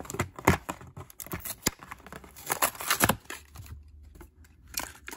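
Hot Wheels blister card being torn open: the cardboard backing ripping and the plastic blister crinkling in several crackling bursts. The loudest bursts come about half a second in and around three seconds in, with one more short rip near the end.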